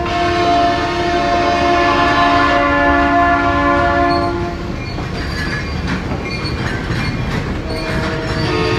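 A diesel locomotive's horn sounds a chord of several notes held steady, cutting off about halfway through. After it, the freight cars' wheels rumble and click over the rail joints as the train rolls past.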